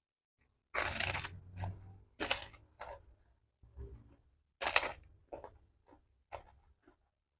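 Close-miked eating sounds, chewing and wet mouth noises, in about ten irregular short bursts with quiet gaps between; the loudest come about a second in and just before five seconds in.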